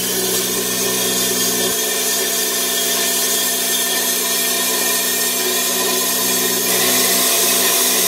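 Hand-held plasma cutter burning a circle through a steel dome: a steady, loud hiss of the arc and air jet with a constant hum underneath.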